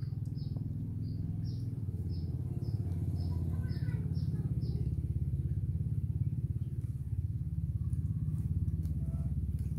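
A small engine running steadily nearby, a constant low hum. Over it, short high chirps repeat about twice a second and stop about halfway through.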